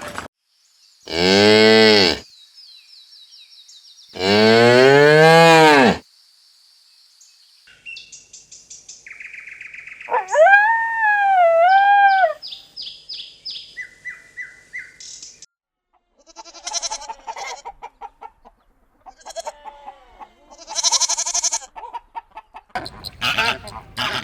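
A cow mooing twice, each moo a second or two long and rising then falling in pitch. It is followed by a run of quieter repeated bird chirps and other short animal calls.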